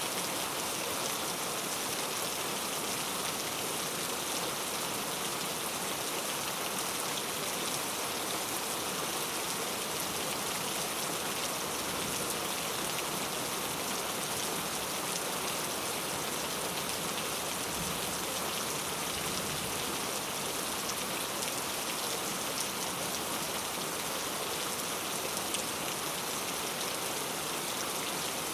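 Heavy rain falling steadily, a dense even hiss with fine drop patter.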